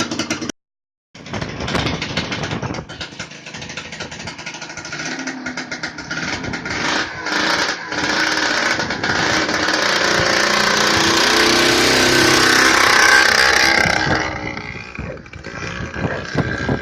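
Go-kart with a two-stroke snowmobile engine running on its first test run, really loud. The engine note builds to its loudest about 13 seconds in, then drops away near the end.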